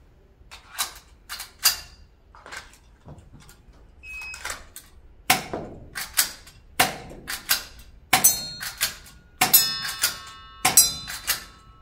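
Toystar M45A1 spring airsoft pistol with a full-metal kit being cocked and fired again and again: a string of sharp metallic clacks, coming faster and louder in the second half, with several strikes ringing briefly near the end.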